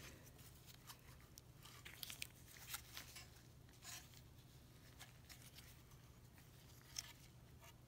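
Near silence: faint scattered clicks and rubs of gloved hands handling a chainsaw's plastic recoil starter housing and pulley, over a low steady hum.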